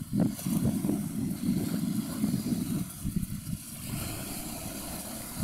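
Wind buffeting the microphone: an irregular, gusty low rumble over a faint steady hiss.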